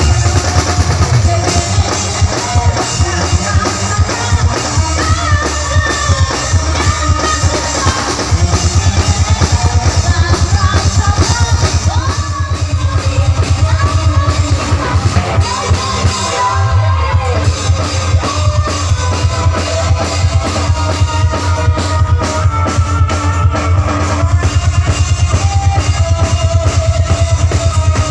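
Loud music played through a large sound system: a fast, steady drum beat with heavy bass and a melody and singing over it, dropping out briefly about halfway through.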